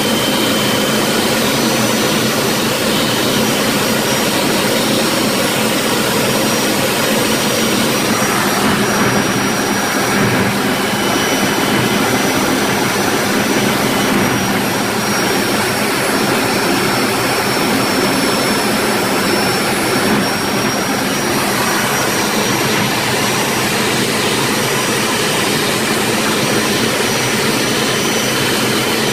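Jet Provost's Viper turbojet running at a steady setting in flight, heard from inside the cockpit. It makes a constant loud rush with a thin high whine over it.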